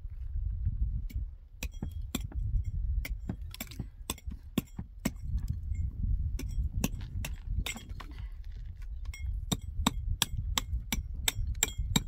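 Repeated sharp knocks of a hand tool striking a hollow concrete block, irregular at two or three a second, some with a short metallic ring, over a steady low rumble.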